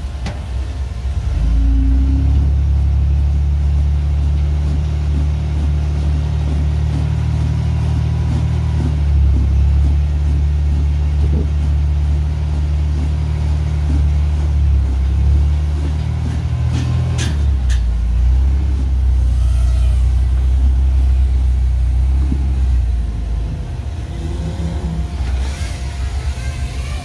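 Engine of a Toyota pickup rock crawler working under load at low speed on a steep rock climb: a steady low drone that swells about a second and a half in and stays up for most of the climb. It dips briefly around the middle with a couple of sharp clicks, then eases off near the end.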